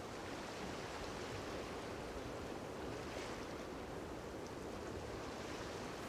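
Steady seaside ambience of waves washing on the shore, an even soft rush of noise.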